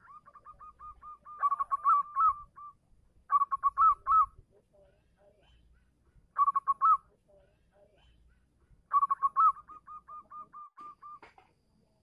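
Male zebra dove (perkutut) singing its cooing song, the call that draws a female: rapid runs of short, soft coos, broken by four louder phrases and trailing off near the end.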